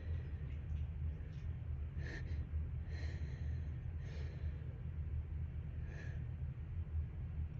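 A person's breathy sniffs and sharp intakes of breath, four short ones, as a dust-triggered sneeze builds, over a steady low hum.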